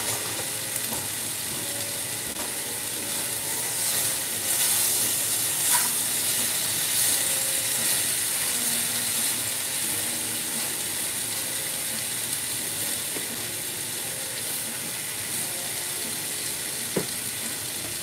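Tomatoes sizzling in a pot on a gas burner, a steady frying hiss.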